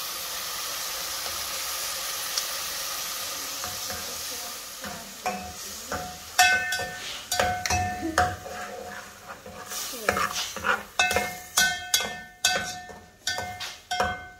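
Tomato and spice masala sizzling in a metal pot. From about five seconds in, a metal spatula stirs and scrapes through it, with repeated sharp knocks against the pot that make it ring briefly.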